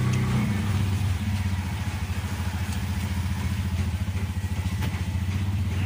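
Bajaj RE tricab's small engine running steadily with a fast even beat, heard from inside the passenger cab.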